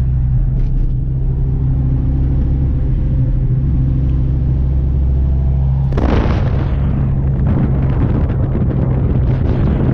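A car engine running steadily while driving, heard as a low drone inside the cabin. About six seconds in it turns rougher and noisier, with the engine and exhaust mixed with wind buffeting on the microphone.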